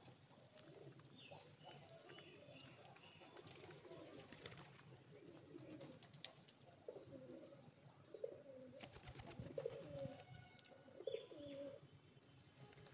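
Flock of pigeons cooing faintly, the coos coming thicker and louder in the second half.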